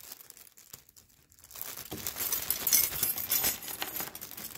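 Thin plastic hardware bag crinkling as it is handled and shaken out, starting about two seconds in, with light clicks of small metal thumb screws.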